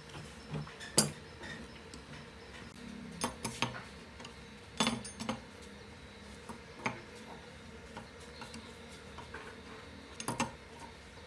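Scattered metal clinks and knocks of a long T-handle socket wrench against the metal housing of an aerator pump motor as its bolts are tightened: a sharp clink about a second in, then a dozen or so lighter clinks spread through the rest.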